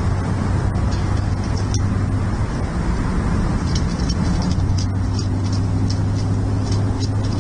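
A steady low rumble of road traffic, with short high bird chirps now and then.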